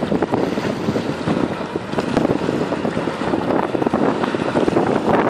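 Wind buffeting the microphone in irregular gusts, over the rushing noise of a fast motor rescue boat and its wake passing on choppy water.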